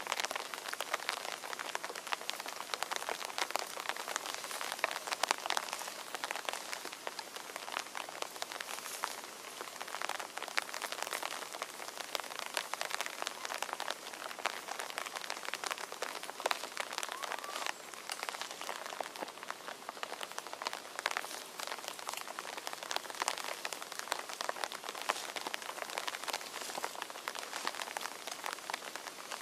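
Steady rain falling on forest foliage, with many separate drops ticking close by.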